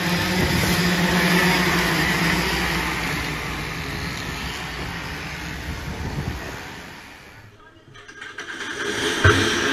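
Pack of two-stroke racing kart engines running hard through a corner, the engine noise fading as the field moves away. Near the end it drops off briefly, then kart engines build up again.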